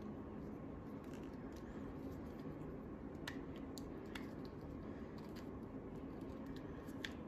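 Faint handling noise from a plastic toy figure being turned in the hand: a few light clicks and rubs over a steady low hum.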